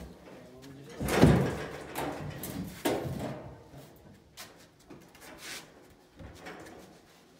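Long wooden plank dragged and knocked against the wooden floor, shifted under a heavy cookstove being moved: a loud scrape about a second in, a sharp knock just before three seconds, then lighter knocks.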